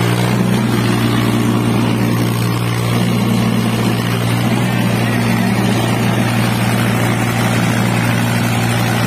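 Diesel engines of a Force Orchard and a Swaraj 724 XM Orchard tractor running hard under load as the two pull against each other on a rope, a steady, unbroken drone.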